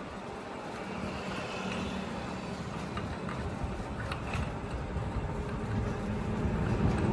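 Manual lathe running with a steady motor and gear hum and a few faint clicks, growing gradually louder.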